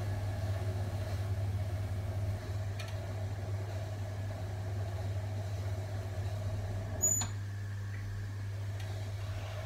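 Electric potter's wheel running, a steady motor hum as the wheel spins, with one short sharp click about seven seconds in.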